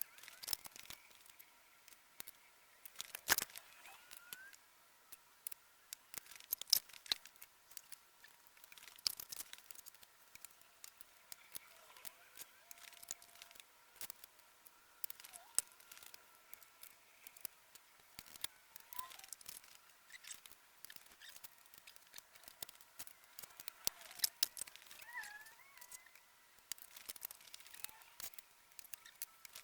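Irregular sharp clicks and clatter of metal sockets being handled and pressed onto plastic socket organizer trays, scattered through the whole stretch.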